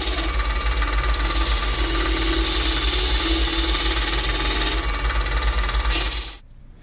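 Midi wood lathe spinning a dry mesquite blank while a hand-held turning tool cuts it: a steady hiss of cutting over the low hum of the machine. It cuts off suddenly near the end.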